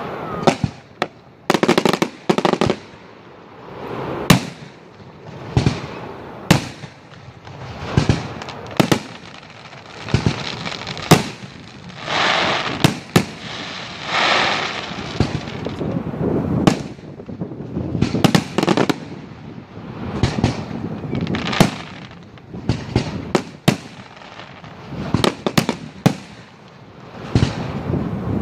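Aerial fireworks display: shells bursting with sharp bangs every second or two, some closely spaced in quick pairs. About halfway through, a white glitter shell fills a few seconds with dense crackling.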